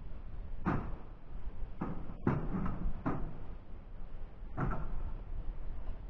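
Wind rumbling on the microphone, with five dull knocks or thumps scattered through it, the loudest a little over two seconds in.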